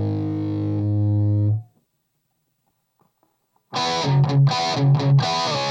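Electric guitar played through a Saphue Crunch distortion pedal into an Orange Rocker 15 amp. A held distorted chord rings and is cut off about a second and a half in. After about two seconds of silence, a new distorted chord comes in with short low chugs under it.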